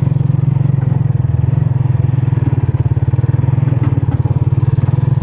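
Motorcycle engine running steadily with a fast, even throb.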